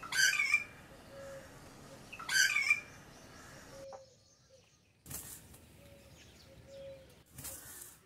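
Pond heron at its nest: two loud, harsh calls about two seconds apart, then two short bursts of rustling and wingbeats as the adult flaps off the nest.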